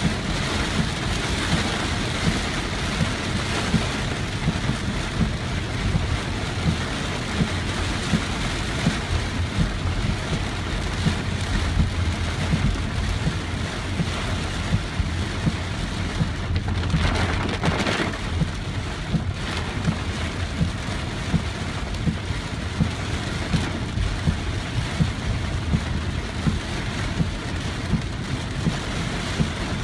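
Hard rain falling on a car's roof and windshield, heard from inside the cabin over the steady low rumble of the car. There is a brief louder rushing hiss a little past the middle.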